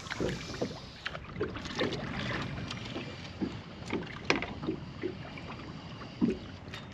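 Small waves lapping against a boat's hull: irregular soft slaps, roughly two a second, over a steady wash of water.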